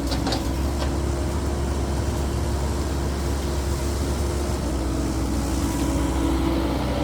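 Caterpillar 308E2 mini excavator's diesel engine running steadily under working load, with a steady whine over it that shifts pitch slightly near the end. A couple of light knocks in the first second.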